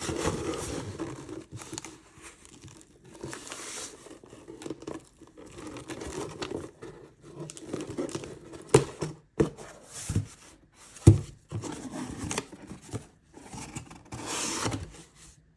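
Packaging material being handled as an order is packed: crinkling and tearing, with a few sharp knocks about nine and eleven seconds in.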